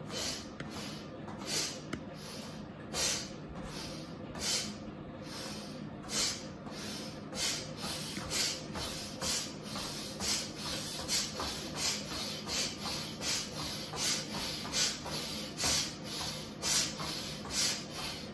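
A person's forceful rhythmic breathing during an arm-thrust exercise: a short sharp hiss of breath with each thrust. The breaths are spaced out at first and speed up to about two a second around six seconds in.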